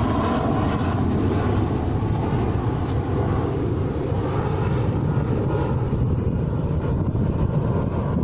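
Airplane flying past: a loud, steady engine drone, heaviest in the low rumble.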